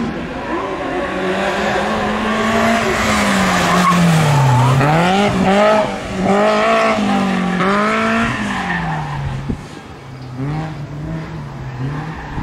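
BMW E30 318iS's 1.8-litre four-cylinder engine revving hard under throttle with tyres squealing as the car slides through the slalom turns. The revs climb, dip around the middle, rise and fall several times, then drop and run lower near the end.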